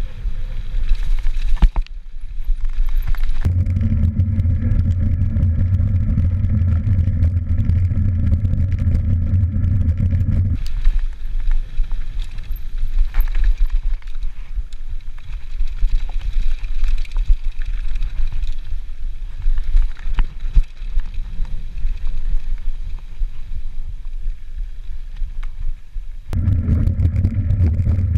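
Mountain bike riding fast down a dirt singletrack, with the rush and buffeting of wind on the camera's microphone and frequent rattling knocks from the bike over bumps. The low wind rumble grows heavier for several seconds from about 3 s in and again near the end.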